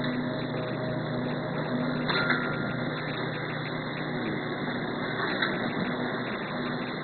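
Automatic disposable-cup packing machine running steadily with a continuous mechanical hum. A couple of short clicks come through, about two seconds in and again about five seconds in.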